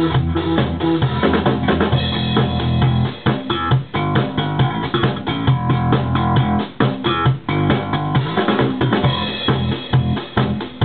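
Disco-style band music: a drum kit keeps a steady beat under guitar and strong bass notes.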